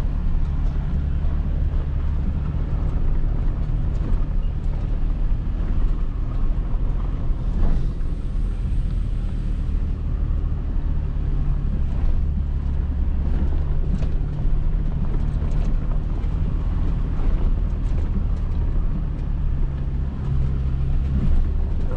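Toyota Tacoma driving on a dirt trail: a steady low drone of engine and tyres, with scattered small knocks and rattles.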